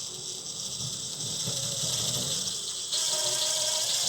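A cordless drill-driver running steadily as it drives a screw into wood, getting louder about three seconds in.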